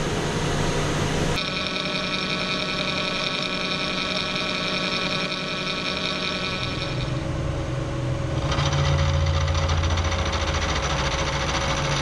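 Metal lathe running with a boring bar cutting inside the bore of a spinning metal part: a steady machine hum with a high, even whine. About a second in the whine sharpens, and from about seven seconds in it gives way to a heavier, lower hum.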